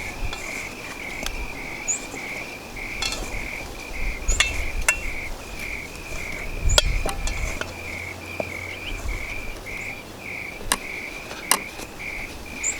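Insects chirping steadily in a pulsing rhythm, about two to three pulses a second, with scattered sharp clicks and knocks from handling.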